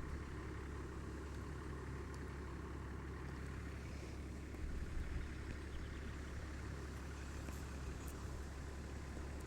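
Wind buffeting the microphone: a steady low rumble, with a stronger gust about five seconds in.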